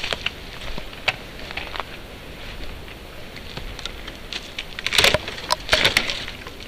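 Footsteps through dry forest undergrowth: scattered crackles and snaps of twigs and leaf litter underfoot, thickest about five seconds in.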